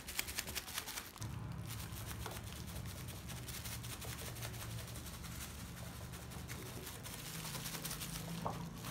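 Crumpled plastic shopping bag crinkling as it is dabbed repeatedly against a painted motorcycle fender. A low steady hum comes in about a second in.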